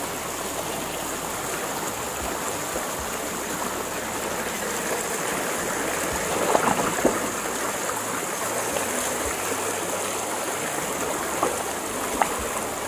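Muddy stormwater runoff rushing steadily down an eroding earth channel, carrying away the soil of the bank, with a few short louder moments about six and a half seconds in and near the end.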